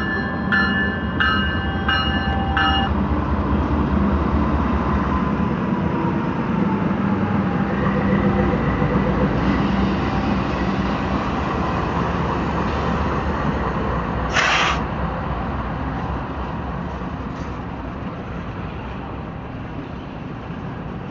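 Norfolk Southern GE C40-9W and C40-9 diesel locomotives, 16-cylinder engines running, passing close by, followed by coal hoppers rolling over the rails. A bell rings in quick strokes at the start and stops about three seconds in; a brief loud hiss comes about two-thirds of the way through, and the rolling sound eases off as the hoppers pass.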